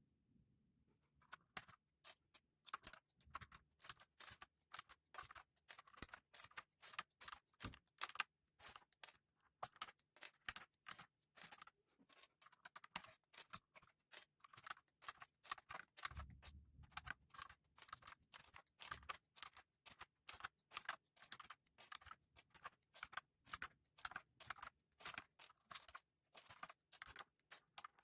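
Typing on a Redragon K596 mechanical keyboard with Akko CS Lavender Purple tactile switches and HyperX PBT pudding keycaps: a fast, steady run of keystroke clacks that starts about a second in, with brief pauses around eight and sixteen seconds.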